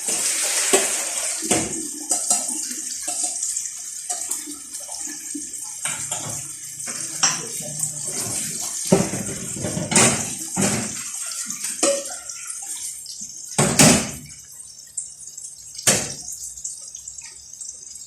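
Tap water running into a sink as salted, cut fava beans are rinsed, with several sharp knocks and clatters of the container against the sink, the loudest about fourteen seconds in.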